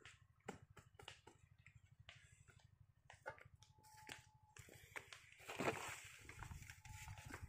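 Quiet footsteps and small scuffs of a person walking on soil, with a louder rustle a little past the middle as they brush past close by; a faint low hum runs underneath.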